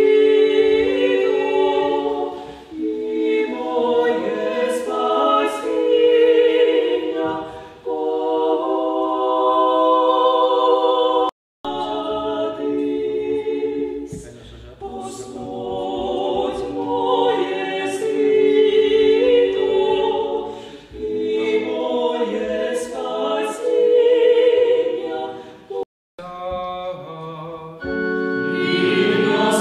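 Small church choir singing a hymn at Mass; the sound breaks off abruptly for an instant twice, about 11 seconds in and again about 26 seconds in.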